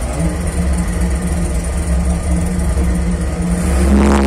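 Homemade LPG-fuelled valveless pulse jet engine running with a steady low drone, which grows louder and steadier near the end.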